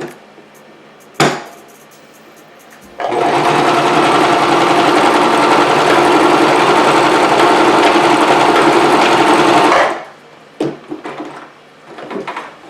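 Singer Promise 2 (1512) sewing machine running at a steady speed on a tight zigzag stitch, starting abruptly about three seconds in and stopping near the ten-second mark. A single sharp click comes just after a second in.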